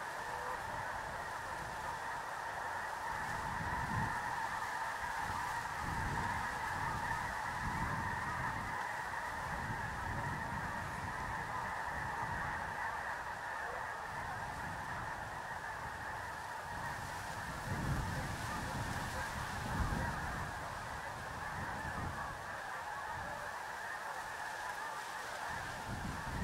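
A huge flock of snow geese calling all at once, a dense, unbroken din of overlapping honks and yelps. A few low rumbles rise under it, the loudest a little past halfway.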